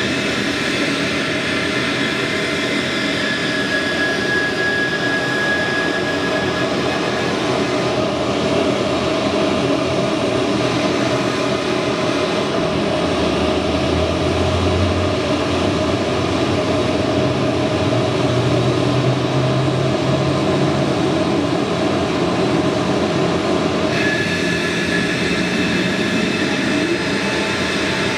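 Mitsubishi CRJ-200LR regional jet during engine start: the steady whine and rumble of its GE CF34 turbofans and auxiliary power unit. A high whine tone drops out a few seconds in and comes back suddenly near the end.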